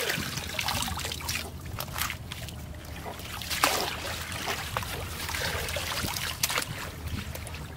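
Shallow muddy water splashing and trickling as a woven bamboo basket is scooped through it and lifted out, the water draining through the weave.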